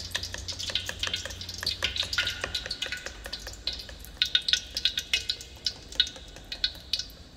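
Raw eggs being beaten with a plastic spoon in a plastic bowl: quick, irregular clicking and tapping of the spoon against the bowl, with the wet slap of the egg.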